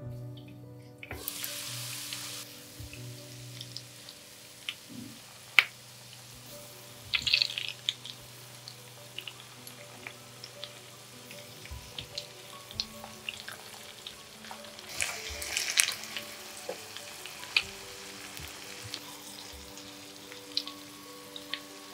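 Vegetable patties frying in hot oil in a pan with a steady sizzle. Sharp clicks and scrapes of a spatula against the pan come through as the patties are turned over, with bursts of louder sizzling about seven and fifteen seconds in. Soft background music plays underneath.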